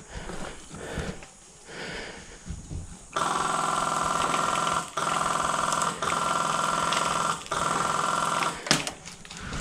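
Airsoft electric gun firing on full auto in three long bursts, a steady mechanical buzz from the gearbox cycling. It starts about three seconds in, with two short breaks between bursts, and stops near the end.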